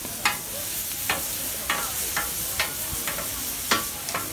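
Chicken strips and sliced onions sizzling on a flat-top griddle, with about eight sharp metal clacks of tongs and a scraper.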